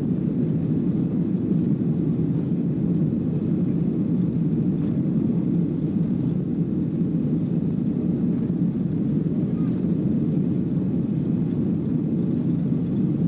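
Boeing 737-700 cabin noise: a steady, deep rumble of the jet engines and airflow heard from inside the passenger cabin.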